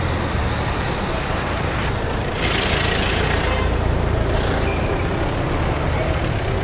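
Busy street traffic: engines running in a steady low rumble as a bus passes close by, with a short hiss about two and a half seconds in.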